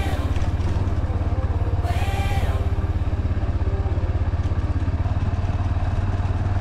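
Small motorcycle engine running steadily at low speed under way, with a rapid even firing pulse. A short high call, like a voice, sounds briefly about two seconds in.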